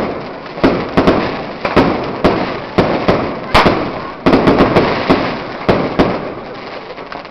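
Aerial fireworks display: a rapid series of loud bangs, about two a second, each trailing off in echo, easing off briefly near the end.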